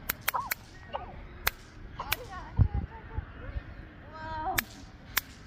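Electric mosquito racket zapping insects: sharp electric snaps, about seven of them at irregular intervals, the first three close together right at the start.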